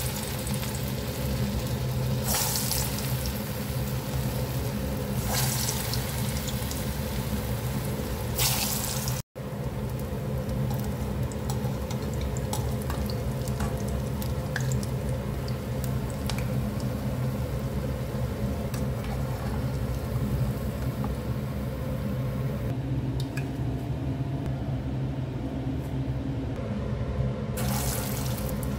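Bottle gourd kofta balls deep-frying in hot oil in a steel kadai, with a steady sizzle throughout. The sizzle flares up briefly each time a fresh raw ball is dropped into the oil: about four times in the first nine seconds and once more near the end.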